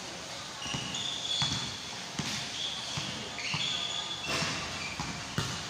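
A basketball bouncing on a painted concrete court during a pickup game: dull thuds at an uneven pace of roughly one a second, mixed with short high-pitched squeaks.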